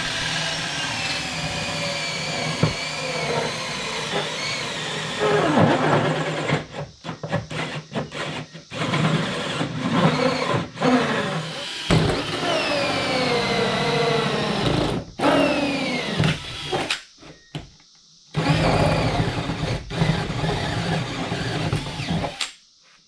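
Power drill driving a wood hole saw through plastic body panel, running in long stretches with its motor pitch sliding down and back up, stopping briefly a few times.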